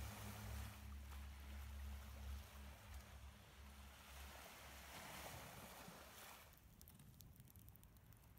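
Near silence: a faint low hum and soft hiss, fading away near the end.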